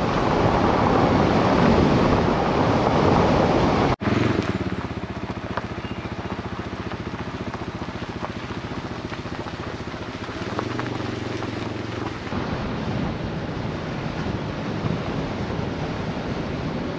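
Vehicle engine running while driving, a steady low hum with fast, even pulsing, under wind noise on the microphone. The sound breaks off for an instant about four seconds in, then goes on a little quieter.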